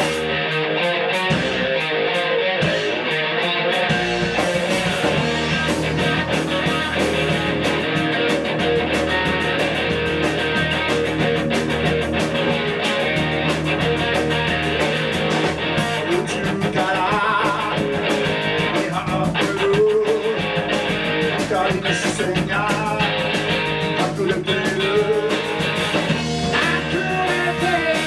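A rock band playing live with amplified electric guitars and drums, at a steady, loud level. A voice sings over the band in the second half.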